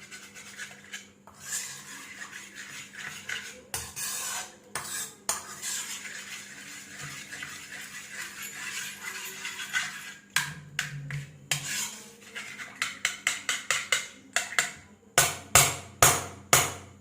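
A spoon scraping and stirring in a metal kadai, mixing custard powder and butter into milk. Near the end come a run of quick, sharp metallic clinks of the spoon against the pan, about three or four a second and getting louder.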